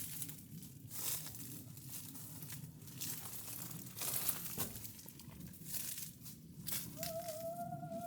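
Footsteps crunching on dry, gravelly ground, about one a second, over a low rumble. Near the end a wavering, whistle-like tone holds for about a second and a half.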